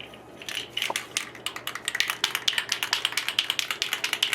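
A can of green spray paint being shaken hard, its mixing ball rattling inside in quick, regular clacks, several a second, to mix the paint before spraying.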